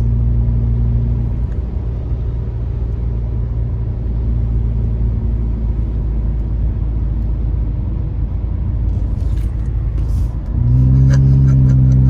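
Car cabin noise while driving: a steady low hum of engine and tyres on a wet road. The hum steps up in level about ten and a half seconds in and then holds steady.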